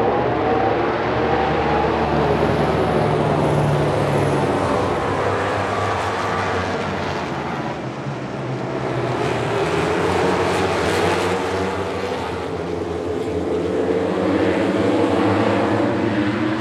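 A pack of MotoGP racing motorcycles accelerating hard off the start, many engines at high revs together. Their pitch rises as they pull away and rises again near the end.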